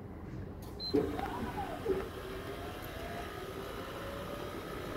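A short keypad beep as the # key is pressed on a Royal Vision bottle-drop vending machine, then a knock and the machine's delivery mechanism motors starting up, with a whine that rises and falls in pitch and a second knock near two seconds in. The motors then settle into a steady whirring whine that creeps slowly upward, the machine running through its calibration.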